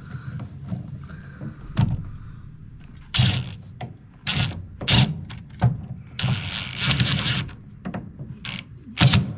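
Screws being driven into a fridge door hinge with a socket driver: a run of short mechanical bursts and knocks, with one longer run of about a second past the middle.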